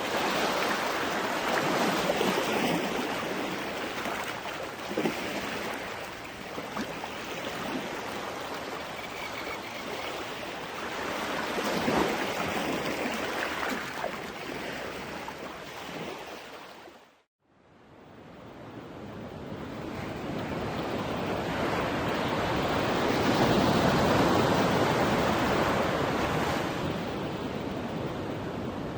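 Ocean waves washing onto a beach, the surf swelling and ebbing in slow surges. A little past the middle it briefly fades to silence and then builds back up.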